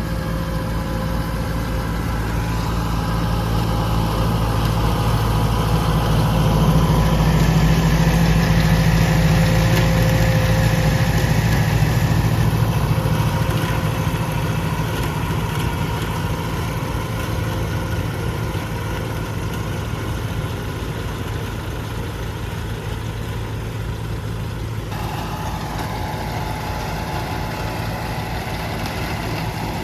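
Tractor engine running steadily while driving a KUHN i-BIO+ round baler-wrapper combination, a low drone that swells louder for several seconds near the middle.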